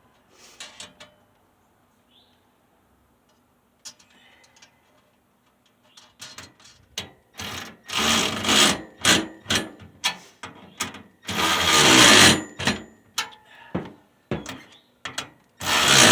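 A power driver runs in short bursts, driving nuts onto bolts. The three loudest bursts come near the middle and at the end, with metal clicks and knocks of parts being handled between them.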